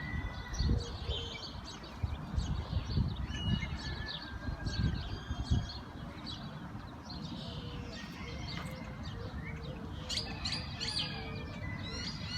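Many small birds chirping and twittering, with irregular low rumbles in the first half.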